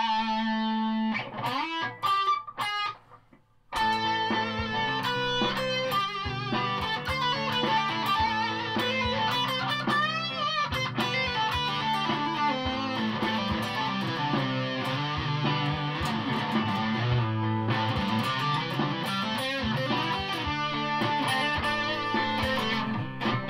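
Stratocaster-style electric guitar played through a fuzz-distorted amp: a lead line of held notes. It breaks off briefly about three seconds in, and a note is bent and wavered about ten seconds in.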